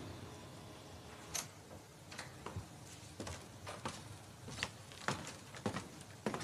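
Footsteps and small handling knocks: a string of irregular sharp clicks and taps, roughly one or two a second, as a person moves through the organ loft.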